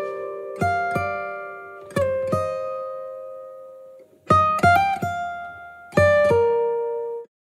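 Background music: an acoustic guitar playing single plucked notes and short runs that ring out and fade, stopping abruptly near the end.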